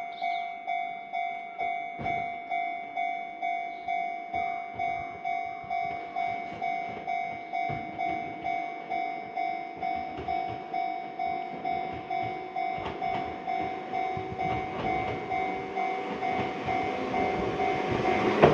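Japanese level crossing's electronic warning bell ringing in a steady, even pulse, about two dings a second. An Enoshima Electric Railway train's approach rises under it over the last few seconds, growing loud near the end.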